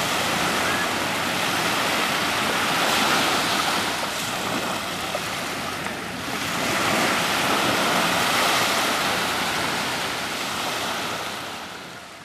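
Small sea waves breaking and washing up a fine pebble beach, the surf swelling twice and fading away near the end.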